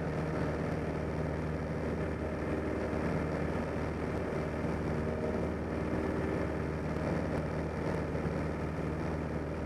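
A 1946 Piper J-3 Cub's air-cooled flat-four engine and propeller running steadily in cruise flight, heard from the cockpit.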